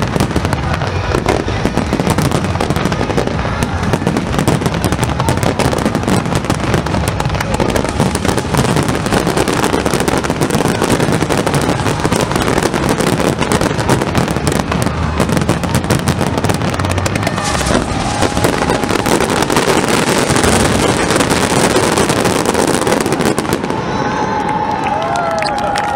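Dense finale of aerial fireworks: a continuous barrage of bangs and crackling from many shells bursting at once, without a break. Near the end a few wavering tones and crowd noise come in.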